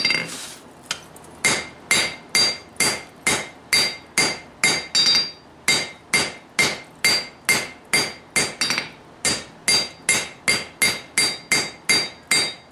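Hand hammer striking a red-hot pattern-welded steel billet on a Peter Wright anvil, about three blows a second, each with a bright metallic ring. The blows square off and draw out the forge-welded billet. The hammering starts again after a pause of about a second at the start.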